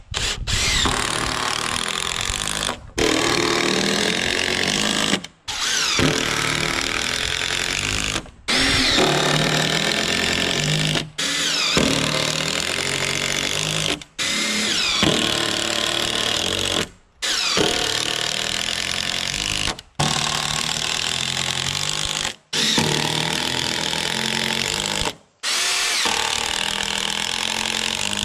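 DeWalt cordless impact driver driving long screws into rough-sawn timber beams. It runs in about ten bursts of two to three seconds each, each stopping abruptly, with the motor whine rising as it spins up.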